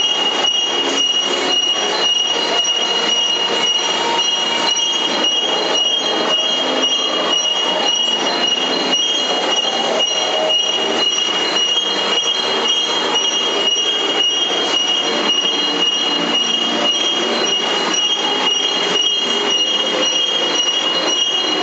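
Industrial degreasing and washing line for deep-drawn metal ware running: steady machinery noise from its electric motors and pumps, with a constant high-pitched whine and frequent light ticking throughout.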